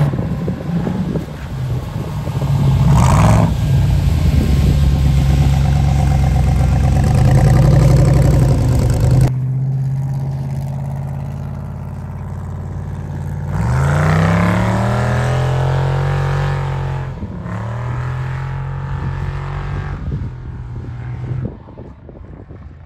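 Ultra4 buggy's engine revving hard and held at high, steady revs while the car drifts on lake ice. After a cut it idles lower, then revs up in a quick rising sweep, drops off briefly, and fades as the car drives away.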